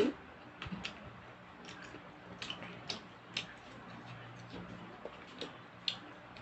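Scattered light clicks and ticks, irregularly spaced, over a faint steady low hum.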